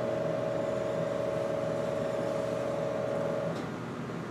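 Gamma camera's detector-head drive motor running with a steady whine as the camera heads move in close to the patient, stopping about three and a half seconds in.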